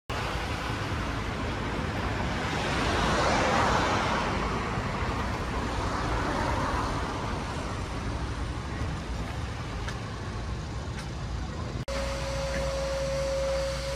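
Street traffic noise, swelling as a vehicle passes about three seconds in. After a sudden cut near the end, a steady single tone sounds over a low hum.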